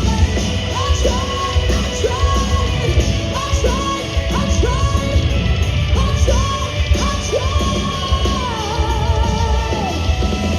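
Live hard rock band playing loudly: heavy drums and bass under a lead line that repeatedly slides up into held high notes.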